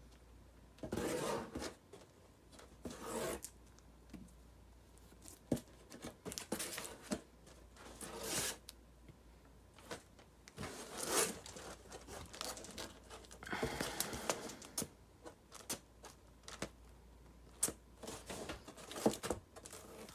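Plastic comic-book bags rustling and crinkling as bagged-and-boarded comics are lifted out of a cardboard comic box and slid back, in irregular short bursts with small knocks between them.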